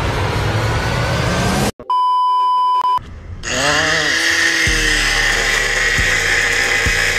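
A short one-tone electronic beep, then a handheld angle grinder spinning up with a rising whine and cutting into steel with a steady high grinding sound.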